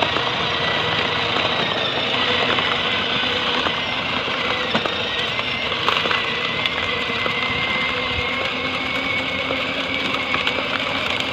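Battery-powered ride-on toy walking tractor driving along, giving a steady high whine that creeps slightly up in pitch over a continuous engine-like chugging.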